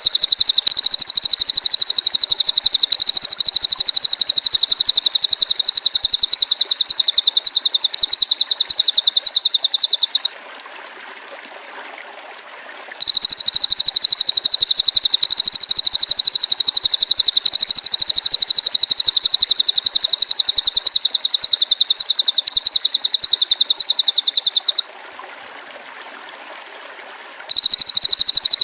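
Belalang emas insect singing a loud, high, shrill buzzing trill made of very rapid even pulses. It comes in long unbroken stretches of about twelve seconds, stops for about two and a half seconds around ten seconds in and again near the end, then starts up again.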